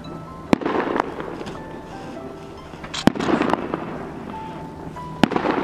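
Aerial firework shells bursting in the sky: four sharp bangs, about half a second, one, three and five seconds in, each followed by a short burst of crackle.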